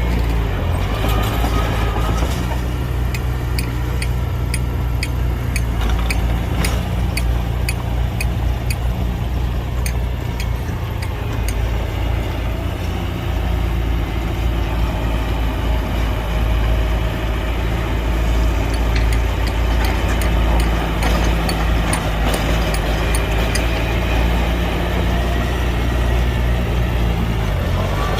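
Heavy diesel engine of earthmoving machinery running steadily with a deep hum. Sharp clicks come about twice a second for long stretches.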